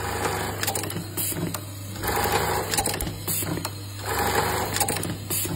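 JACK automatic chain-stitch button-sewing machine, a direct-drive model, stitching buttons onto fabric. It runs in short sewing bursts about two seconds apart, one per button, over a steady low hum.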